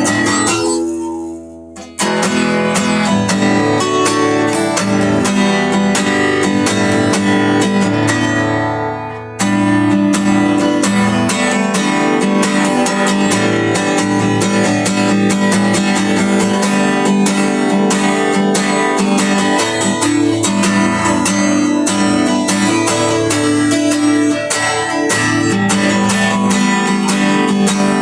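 Strummed guitar music playing continuously. It fades away briefly and cuts back in sharply twice, about two seconds in and about nine seconds in.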